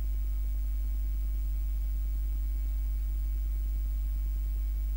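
Steady low electrical hum with a few faint higher overtones, unchanging throughout and with no other sound.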